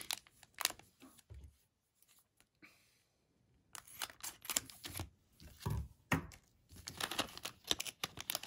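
Glossy plastic wrapper of a trading-card pack crinkling and tearing as it is peeled open by hand, in short, irregular crackles that start about four seconds in after a quiet pause.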